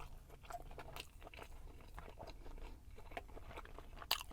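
A person chewing a mouthful of food close to the microphone: irregular soft wet mouth clicks and smacks, with a sharper click near the end. A faint steady low hum runs underneath.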